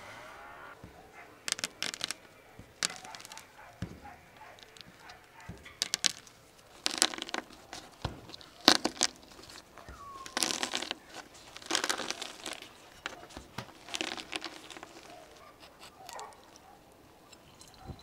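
Irregular crunching and crackling as a whole pomegranate is squeezed and kneaded in the hands, crushing the seeds inside to free the juice.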